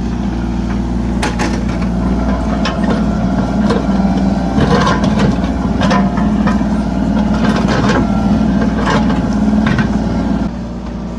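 Mini excavator's diesel engine running under load while digging, with scattered knocks and clunks from the bucket and arm working. The engine eases off about ten and a half seconds in.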